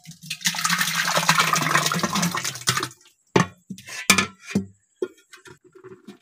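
Set yogurt (dahi) pouring and sloshing from a plastic bowl into a metal pot, the pot being filled for churning butter and lassi. The pour lasts about two and a half seconds, then a few short knocks and clatters follow.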